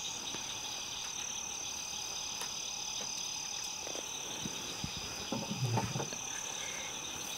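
Insects trilling steadily in high, unbroken tones, with some of the trills breaking on and off. A short, faint lower sound comes a little past the middle.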